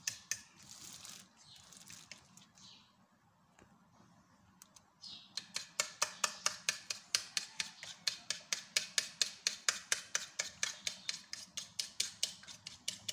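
A fork beating a thin flour-and-water batter in a bowl, clicking against the bowl in rapid, even strokes of about five a second. The beating stops about a second in and starts again about five seconds in.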